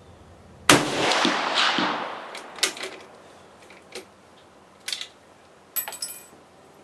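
A single shot from a sporterized K98 Mauser bolt-action rifle in 8mm: one sharp crack with a long echo that dies away over about a second and a half. It is followed by a few small clicks and, near the end, a click with a short high metallic ring.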